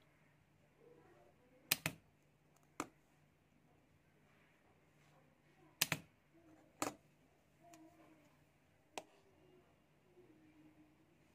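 Homemade battery-powered spot welder firing as its copper electrodes weld a nickel strip onto a steel plate: five sharp snapping clicks one to three seconds apart, two of them quick double snaps.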